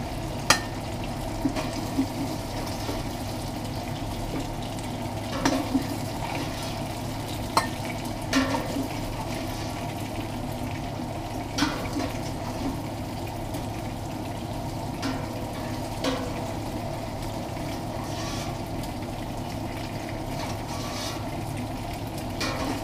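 Browned beef chunks sizzling in hot oil in a stainless steel stock pot as they are spooned out, with the spoon clinking now and then against the pot and bowl.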